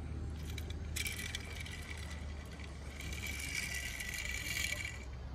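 A dense rattling, rustling noise that starts about a second in and stops near the end, over a steady low hum.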